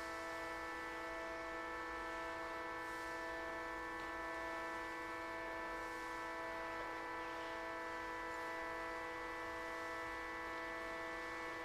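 A steady musical drone: a chord of several held tones, the lowest the strongest, sustained without change or attack.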